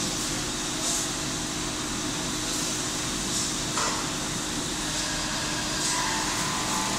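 Steady workshop background hum of machinery or ventilation, with a constant low tone running under it and a few faint, brief sounds about a second, three and a half and six seconds in, as a bolt is being torqued with a long-handled wrench.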